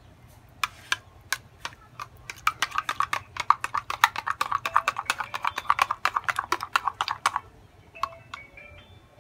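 A rapid run of sharp clicks and clinks, like a spoon knocking and scraping inside a container while scooping sauce. It starts with a few scattered clicks, then runs at about six a second before stopping about seven seconds in.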